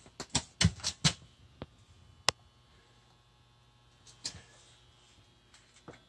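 A scatter of short, sharp clicks and light knocks, most of them in the first two seconds or so and a few fainter ones later, over a faint steady low hum.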